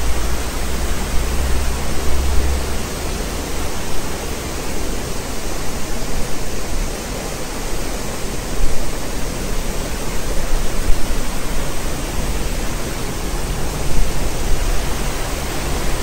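Waterfall: water pouring over rock ledges and churning into white water below, a loud, steady rush that never breaks.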